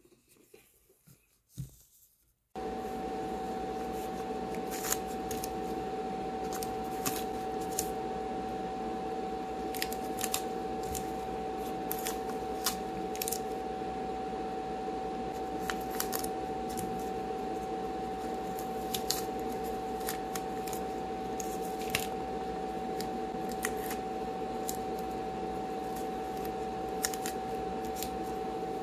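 A small electric motor switches on about two and a half seconds in and runs steadily with a constant whine. Sharp clicks sound over it every second or two.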